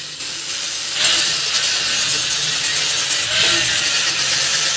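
Handheld angle grinder with an abrasive disc grinding along a welded metal exhaust pipe: a steady, high hiss of disc on metal that gets louder about a second in as it bites harder.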